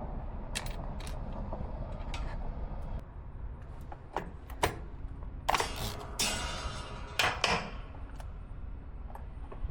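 Metal clicks, rattles and scraping of hand tools on the winch's wiring terminals as the connections are unbolted. A few sharp clicks come first, then a louder bout of scraping and rattling about five and a half to eight seconds in.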